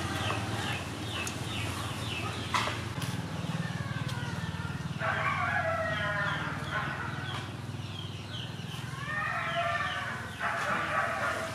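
A rooster crows at about five seconds and again at about nine seconds. Quick repeated chirps come near the start, and a steady low hum runs underneath.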